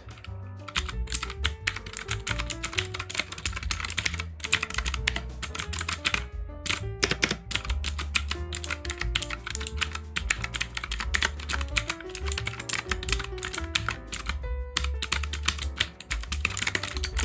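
Fast, continuous typing on a HUO JI CQ63 mechanical keyboard fitted with what the owner takes to be Outemu blue clicky switches: a dense run of crisp, typewriter-like key clicks, pausing briefly twice. Background music plays underneath.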